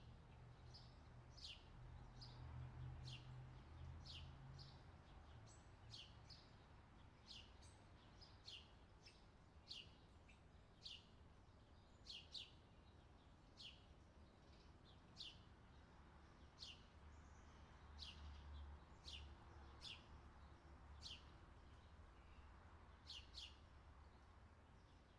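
Faint recorded summer birdsong: small birds chirping about once a second, each chirp a short, high, downward-sweeping note, over a faint low hum.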